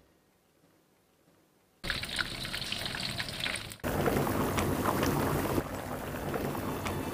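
Almost silent for about two seconds, then food cooking: a hissing, crackling sizzle that changes abruptly about four seconds in to a louder crackling and bubbling of meat and fish simmering in a pot.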